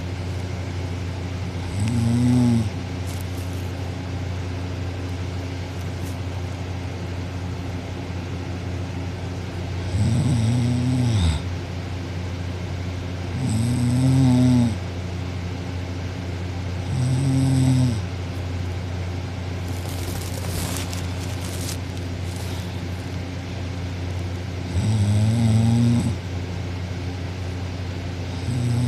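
Girl snoring loudly in her sleep: six snores of about a second each, spaced unevenly several seconds apart, over a steady low hum.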